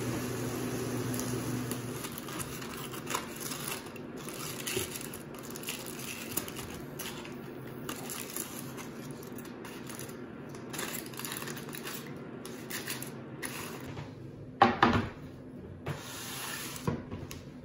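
Aluminium foil crinkling and tongs scraping in a frying pan as a foil-wrapped piece of cod is opened, with many small clicks; a low hum stops near the start. About fifteen seconds in comes a loud knock of a dish set down, followed by a few lighter clinks.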